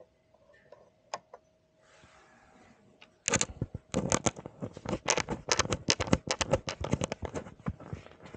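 Rapid, irregular clicking and rattling of small hard parts being handled, starting about three seconds in after a few faint clicks.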